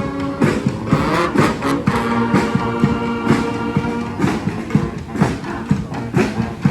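Live street brass band of horns and drums playing a New Orleans brass-band tune: held horn notes over a steady drum beat.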